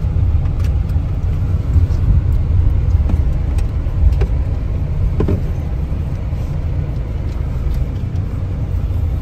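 Car running at low speed, heard inside the cabin: a steady low rumble of engine and tyres as it pulls into a parking area.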